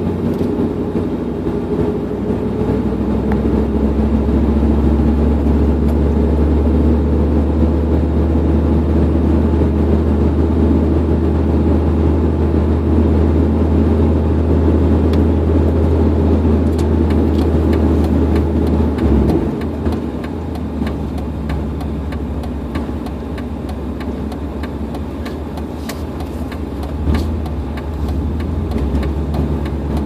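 Straight-piped exhaust of a 1998 Dodge Dakota heard from inside the cab while driving, a steady low drone. About two-thirds of the way through the note drops off suddenly and the engine runs quieter after.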